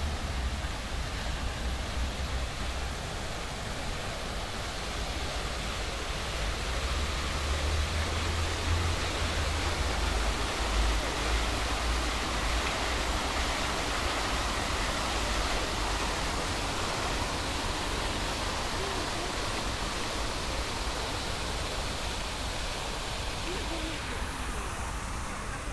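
Public fountain's jets splashing into their stone basin: a steady rush of falling water that swells midway and thins out near the end, over a low rumble.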